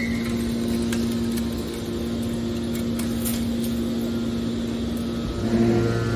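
Hydraulic scrap metal baler running with a steady, even hum. About five seconds in, a second, lower hum joins and it grows slightly louder.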